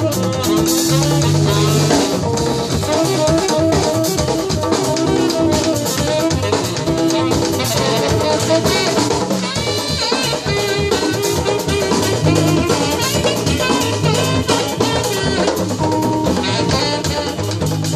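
Live jazz band playing with drum kit, saxophone and piano joined by Uruguayan candombe drums (chico, piano and repique tambores), the hand drums and kit striking densely under a melody line.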